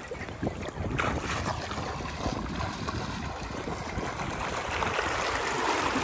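River water rushing, a steady wash of noise with no distinct events.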